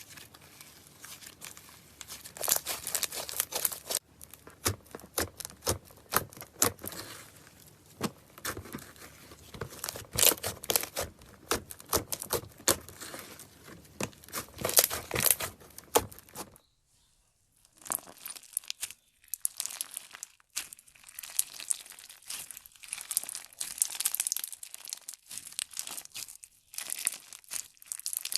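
Crunchy slime being worked, giving dense crackling and snapping. It breaks off to silence for about a second partway through, then the crackling starts again.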